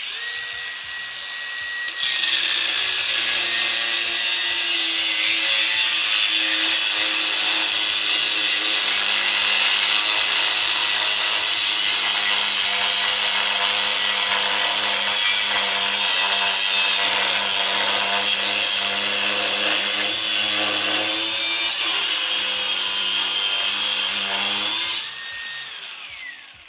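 WORX WU806 cordless angle grinder spinning up with a high whine, then cutting into 12 mm steel plate with a loud, steady grinding noise for over twenty seconds, forced hard into the cut without stalling and wearing the cutting disc down fast. Near the end it is lifted off and winds down.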